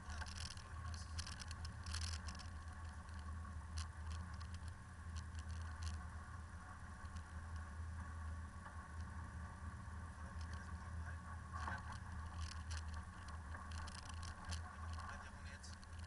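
Land Rover driving along a rough, snowy track: a steady low engine drone with scattered clicks and knocks from the vehicle over the uneven surface.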